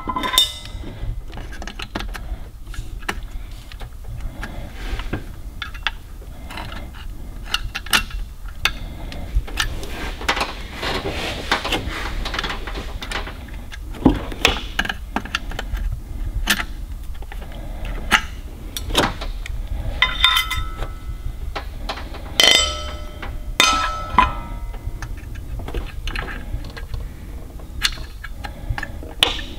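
Hands working on an HEI distributor cap and its spark plug wires: scattered clicks, taps and rattles of plastic plug-wire boots and small hardware. A few louder, ringing metallic clinks come about two-thirds through.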